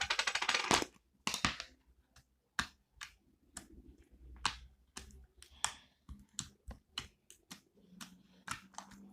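Slime being squeezed and stretched by hand: a fast crackling run of sticky clicks in the first second, then scattered wet clicks and pops of trapped air.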